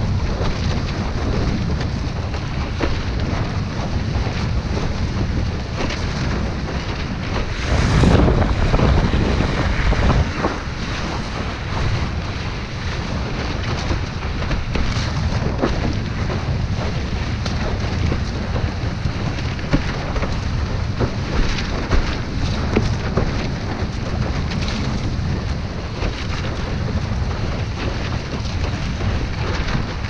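Strong wind buffeting the microphone over rushing water as a windsurf board sails fast through chop. There is a louder surge of wind and water about eight seconds in, lasting a couple of seconds, and short sharp slaps of chop against the board now and then.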